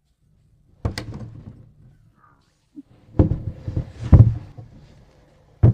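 A bunk bed being lowered and set down inside a trailer camper, with knocks and thumps. There is one knock about a second in, a cluster of thumps around three to four seconds in (the loudest near four), and a sharp knock at the end.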